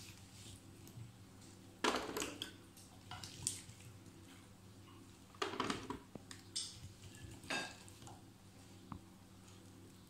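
Oiled vegetable chunks being scooped out of a ceramic baking dish and set down in a metal roasting tray: a handful of separate soft knocks and clatters a second or two apart.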